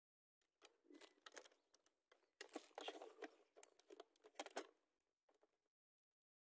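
Faint close handling noise: fingers rubbing, scraping and tapping on a small thermal scope's body and eyepiece, a busy run of little scrapes and ticks that stops about a second before the end.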